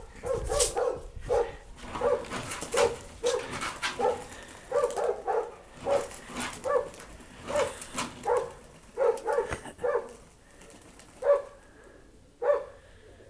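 A dog barking repeatedly, a short bark every half second to a second, pausing about ten seconds in and giving two last barks near the end.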